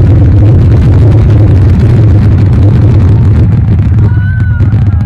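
Fireworks finale: a dense, unbroken barrage of aerial shell bursts running together into one loud rumble with sharp bangs through it. About four seconds in the barrage thins and high gliding whistles come in.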